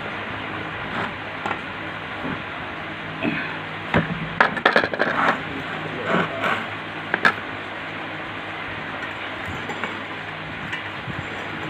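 Metal pump parts and tools clinking and knocking against each other several times, clustered about four to seven seconds in, over a steady low hum.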